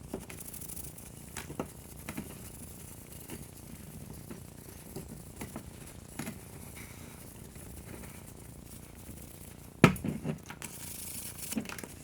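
Scattered light clicks and scrapes of hand work on a cast-iron stove door, with one loud knock about ten seconds in.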